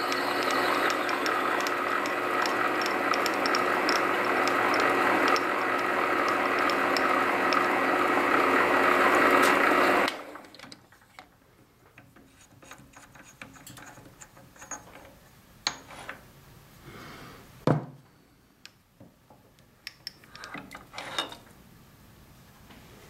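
Small metal lathe running while a twist drill in the tailstock chuck bores into a spinning wooden dowel, a steady machine sound with a constant whine. It cuts off about ten seconds in, leaving a few light clicks and one sharp knock as the work is handled.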